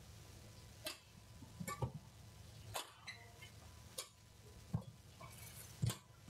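Badminton rally: rackets striking the shuttlecock in sharp clicks about once a second, six hits back and forth, the last two loudest.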